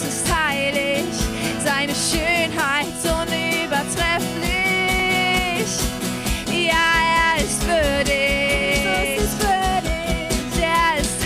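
Worship band music: a voice holds and bends long wordless notes over a steady beat.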